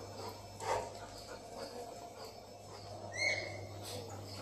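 Small birds chirping faintly, with one short, louder high-pitched call about three seconds in. A soft knock comes just under a second in.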